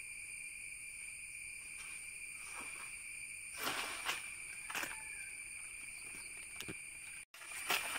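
Steady high-pitched insect chorus, with a few short crackling rustles of the hog plum tree's leaves and branches as it is pulled and shaken, the loudest about halfway through.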